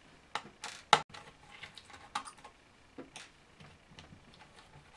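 Screwdriver undoing the small screws of a laptop's CPU and GPU heatsink: irregular small metallic clicks and taps, the loudest about a second in.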